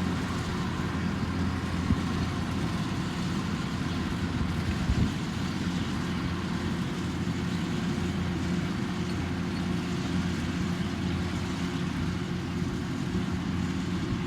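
Kubota rice combine harvester's engine running steadily under working load, a constant low machine hum, with a couple of brief knocks about two and five seconds in.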